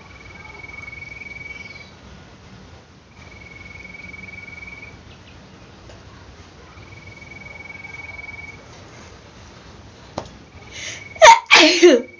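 A woman sneezes loudly near the end, a sharp inhale followed by a noisy burst with a falling voice. Before it, three long, thin, steady high tones come and go, each about two seconds.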